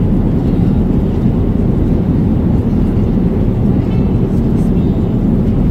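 Steady airliner cabin noise in flight: the even low roar of the jet engines and rushing air.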